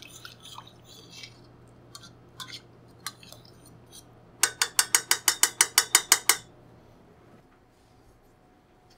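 A metal spoon stirring quickly in a stainless steel saucepan of tomato sauce: a rapid, even run of about fourteen clinks against the side of the pan, about seven a second, lasting under two seconds. A few light taps and clicks come before it.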